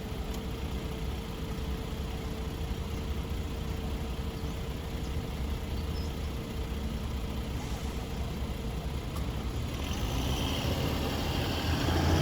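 An engine idling with a steady low rumble. Near the end, vehicle noise swells louder as traffic or the train comes closer.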